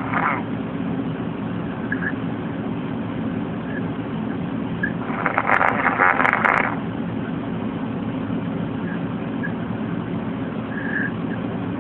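A man snoring in his sleep. The tail of one snore comes at the very start and a full snore about five seconds in, each lasting about a second and a half, over a steady low hum.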